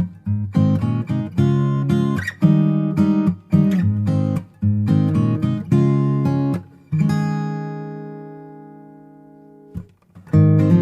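Background music of acoustic guitar strumming chords. About two-thirds of the way through, one chord is left ringing and fades out for nearly three seconds before the strumming starts again.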